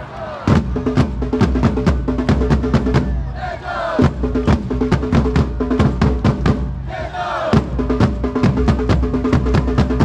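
Supporters' drums beaten with mallets in a fast, steady beat, with a stadium crowd chanting along over it.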